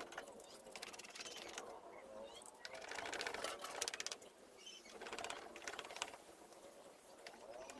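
Cloth rags rubbing back and forth over a plywood door panel and its wooden frame, in swelling strokes, with bursts of fast clicking.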